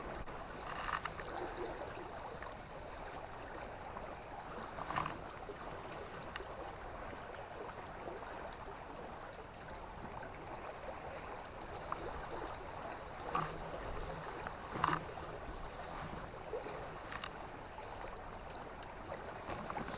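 River water flowing steadily, with a few faint knocks now and then.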